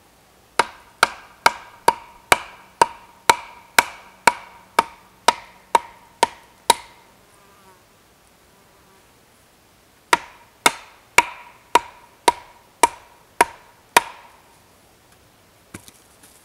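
Wood-on-wood knocks: a log swung as a mallet pounds the top of a wooden post, driving it in. The blows come about two a second, each a sharp knock with a short ring, in a run of about fourteen, then a pause of a few seconds and about eight more.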